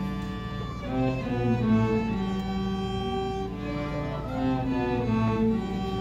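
A string trio of violin, cello and a third bowed string playing a piece together, a melody moving over sustained lower notes.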